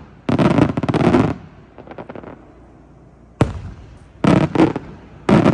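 Aerial fireworks bursting overhead: a dense run of rapid crackling reports in the first second or so, a faint crackle after it, then a sharp bang about three and a half seconds in followed by several more bursts.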